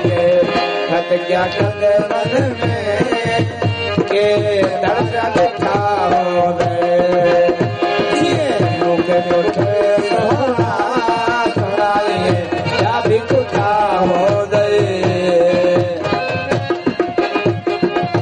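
Live Sindhi folk music, loud and continuous. A harmonium holds steady chords while a hand drum keeps a driving rhythm under an ornamented melody with sliding pitches.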